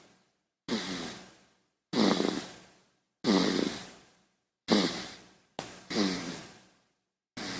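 A baby snoring: about six short, breathy snores, each starting sharply and fading out over about a second, with silent gaps between them.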